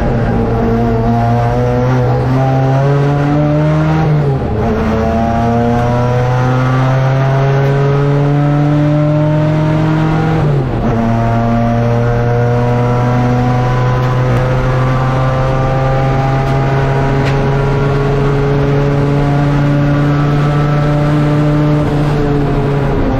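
A saloon race car's engine heard from inside the cabin, pulling hard: its pitch climbs in each gear with quick upshifts about four and eleven seconds in, then holds high down the straight and falls near the end.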